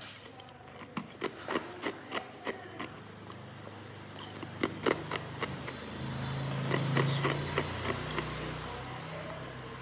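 Hard ice cracking and clicking close to the microphone, a string of sharp irregular snaps, over a low hum that swells for a couple of seconds near the middle.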